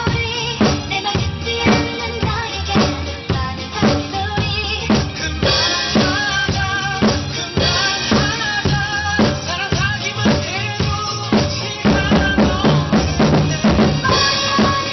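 Acoustic drum kit played in a steady pop groove, bass drum and snare with rimshots, over a recorded pop song with a melody line. Cymbal crashes come in about a third of the way in, around the middle, and again near the end.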